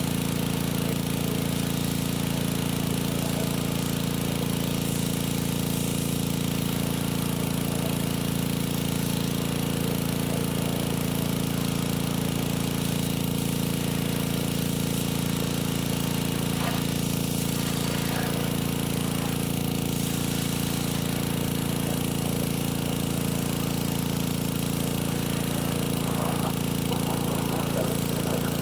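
Pressure washer's small gasoline engine running steadily under load, with a hiss of water spray from the extension wand.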